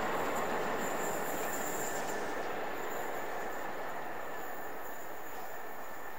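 A passing train's carriages rolling along the track and moving away, the rumble gradually fading, with a thin, steady, high-pitched squeal from the wheels.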